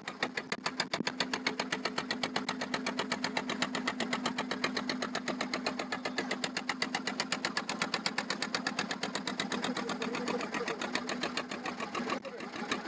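The boat's inboard diesel engine running steadily with a rapid, even knocking.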